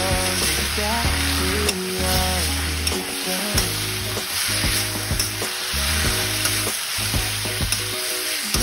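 Vegetables sizzling in a hot wok as a spatula stirs and tosses them, with frequent scrapes and clicks of the spatula against the pan. A song plays underneath.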